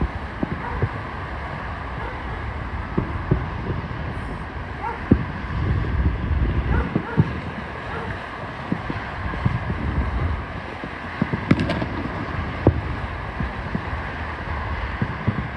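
Fireworks going off: a string of irregular booms and pops, several a second at times, over steady wind noise on the microphone.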